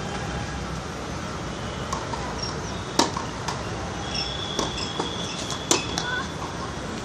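Tennis ball struck by rackets during a rally: sharp pops, the loudest about three seconds in and again near six seconds, with lighter ball bounces and taps between, over a steady background noise.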